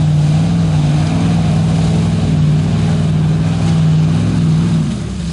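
Lifted Ford pickup's engine held at steady high revs as it drives through a mud pit on big mud tyres, easing off just before the end.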